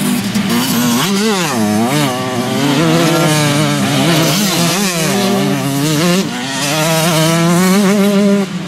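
Several motocross dirt bikes riding past on a dirt track, their engine notes overlapping and rising and falling repeatedly with throttle and gear changes. The sound drops off suddenly near the end.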